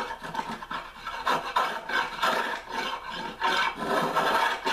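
An old spokeshave shaving an oak axe handle in a run of short scraping strokes, taking fine, controlled cuts.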